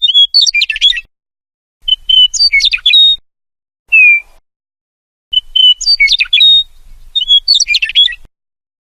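Meadowlark singing: four short song phrases, each opening on a clear whistle and tumbling into a quick jumble of notes, with a single slurred note between the second and third.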